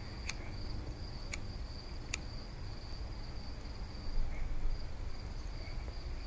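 Crickets chirring in a steady high-pitched band, with three sharp clicks in the first two seconds from a disposable lighter's wheel being struck to light a joint.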